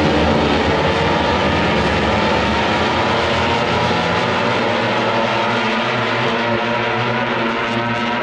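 Several racing motorcycle engines running at high revs together, a steady drone of overlapping engine notes whose pitches shift slowly.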